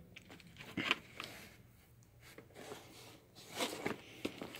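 Cardboard trading-card set box being handled and turned over: faint scrapes and light taps, a cluster about a second in and another near the end.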